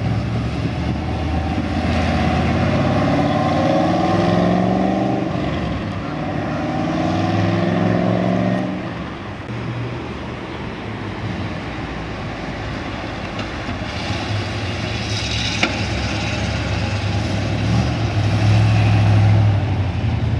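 1971 Corvette Stingray's 350 V8 accelerating through its four-speed: engine pitch rises, drops at a gear change about five seconds in, then rises again. After that the engine sound settles into a steadier, lower cruise and swells again near the end.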